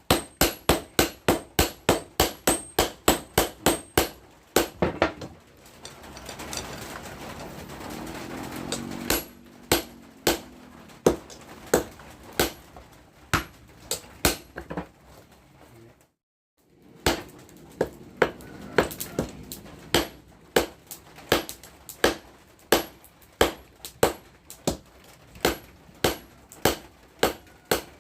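Hammer blows on the steel of a hand tractor's rotary tiller blade being forged into a machete: sharp, evenly spaced strikes, about three a second at first, stopping for a few seconds about five seconds in, then resuming at about two a second.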